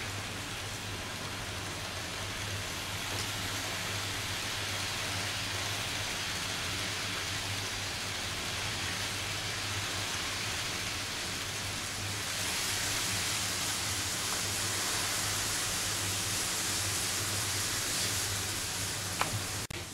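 N-gauge model passenger train running along its track: a steady whirring hiss over a low hum, growing louder and brighter about twelve seconds in as the coaches pass close. A sharp click near the end.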